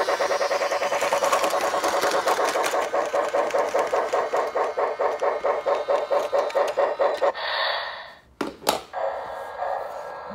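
Lionel Thomas the Tank Engine toy train running with a rapid rhythmic chugging of about five beats a second, which stops about seven seconds in; a sharp knock follows about a second later.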